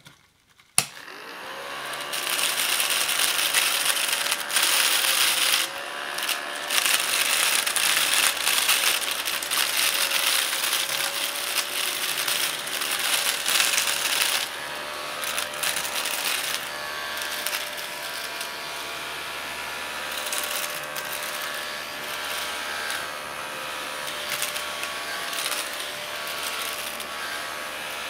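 A 1980s battery-operated Command mini vacuum cleaner switched on with a click about a second in, its small motor then running with a steady whine as it is pushed over scraps of cut paper on a hard tabletop. Irregular rattling runs through the first half as it picks up the pieces.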